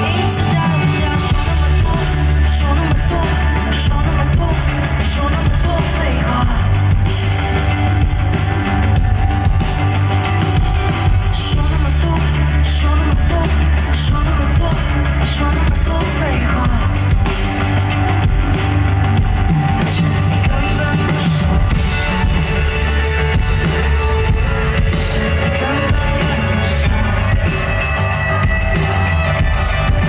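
Live band performance: a singer singing into a handheld microphone over drums, bass and guitar, with a heavy, steady low end.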